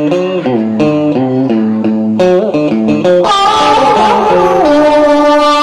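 Cải lương accompaniment: an electric guitar playing a melodic line of plucked notes with pitch bends. About three seconds in, a woman's singing voice enters on a long held note that slides between pitches.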